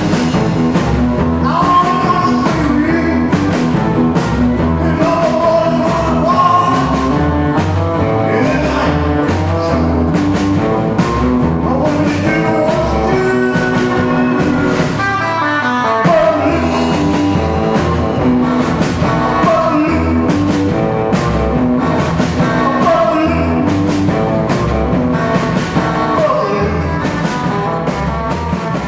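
Rockabilly band playing with singing, electric guitar and a steady drum beat. The bass drops out for a moment about halfway through, then the full band comes back in.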